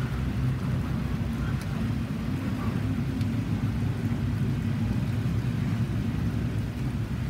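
Double-stack intermodal freight train rolling past: a steady low rumble of steel wheels on rail, with rain falling.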